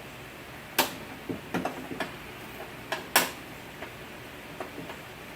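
Irregular sharp clicks and knocks of hand tools and parts being handled inside a car door, with two louder knocks, one near the start and one about halfway through, and smaller taps between.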